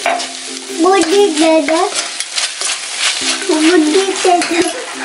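Chopped vegetables sizzling in a steel wok while a steel spoon stirs sauce through them, clicking and scraping against the pan. A wavering tune sounds over it twice, about a second in and again from about three seconds in.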